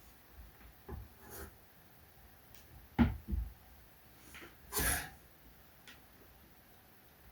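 Scattered clicks and knocks of laptop parts and tools being handled, the loudest about three seconds in, with a short rustle near five seconds.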